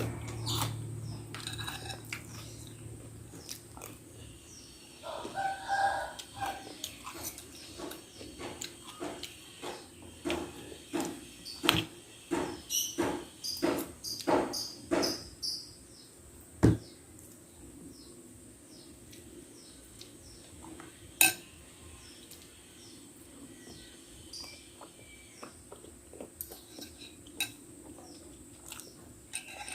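Eating bakso: chewing, with a run of sharp clicks and taps of a spoon on the bowl in the middle and two louder knocks later. A short pitched call sounds in the background about five seconds in.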